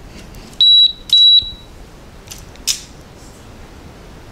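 Two short, high electronic beeps about half a second apart from the LiDi RC L6 hexacopter's transmitter setup as it is switched back on after a crash, followed by a brief click.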